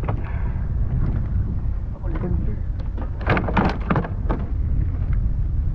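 Wind buffeting the microphone in a steady low rumble, with a quick cluster of splashes about three seconds in as a hooked tarpon thrashes at the kayak's side while being landed.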